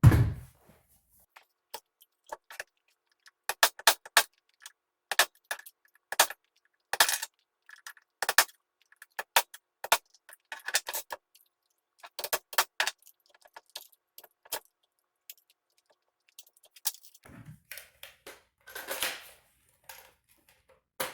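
Irregular sharp clicks and clatter of small hard plastic and metal parts being handled and tapped while a nail gun's battery mount is worked on, coming in quick clusters, then after a short pause a couple of duller knocks near the end.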